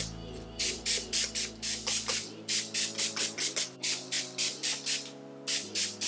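Finger-pump spray bottle of TRESemmé Heat Tamer heat-protectant spray misting onto hair, pumped in quick short spritzes about four a second with a brief pause near the end. Background music plays underneath.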